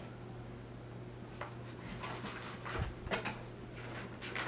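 A few soft rustles and light knocks as a paperback picture book is handled and turned back around, over a steady low electrical hum in a quiet room.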